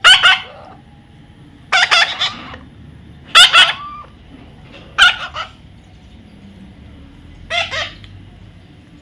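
A parrot giving five short, harsh squawks at irregular intervals, each well under a second long.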